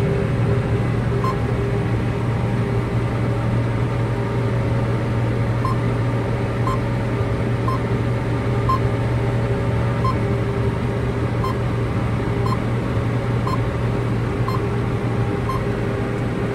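John Deere cotton picker running steadily while picking, heard from inside its cab as a constant machine drone. A short electronic beep sounds once early, then repeats about once a second from about six seconds in.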